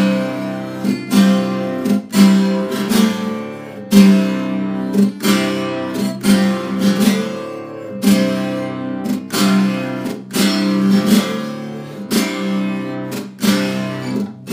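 Acoustic guitar strummed in a steady rhythm, about two strokes a second, in an instrumental passage without singing.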